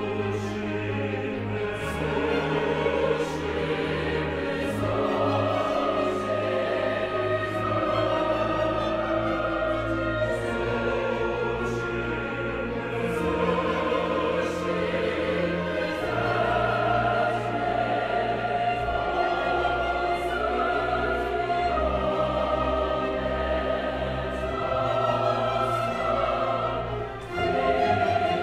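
A choir singing a classical mass movement with a string orchestra. The music stays full and steady, with a short drop in loudness just before the end.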